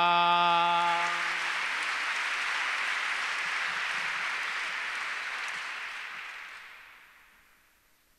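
A bertsolari's unaccompanied voice holds the final sung note of his verse and stops about a second and a half in, over audience applause that then fades out near the end.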